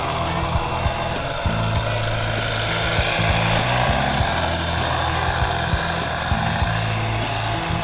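Rock music with a bass line and a steady beat, played over a steady engine-like running noise.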